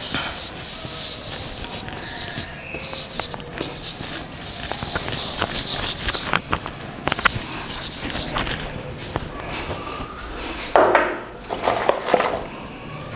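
Blackboard duster wiping chalk off a blackboard in repeated rubbing strokes, with a few light knocks.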